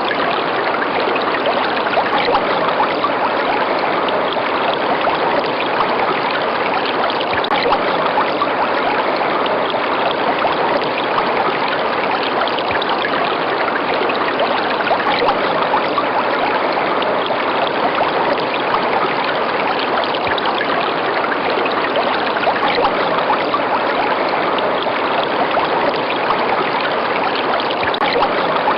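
River water running steadily, an even rushing with no breaks.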